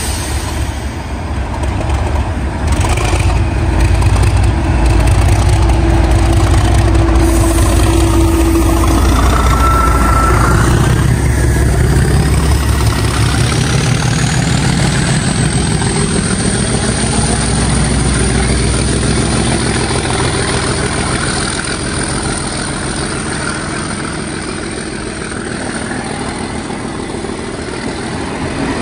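Class 37 diesel locomotive 37510, its English Electric V12 running, passes close by. The engine sound fills about the first half and then eases as the hauled coaches roll past with a rhythmic clatter of wheels over the rail joints. A thin high whine rises about halfway through and holds.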